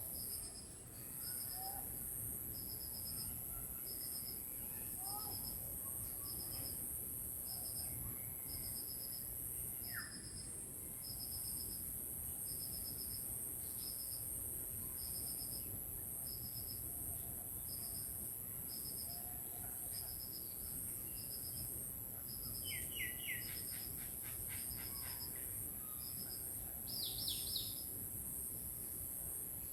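Village bird and insect chorus: a steady high insect hiss with a short chirp repeating about once a second, under scattered faint bird chirps. A bird gives a louder call of rapid repeated notes about three-quarters of the way in, and another sharp call follows a few seconds later.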